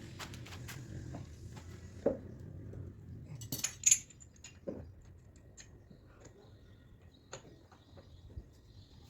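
Scattered light metallic clinks and clicks of small metal objects being handled, with a brief cluster of louder clinks about four seconds in.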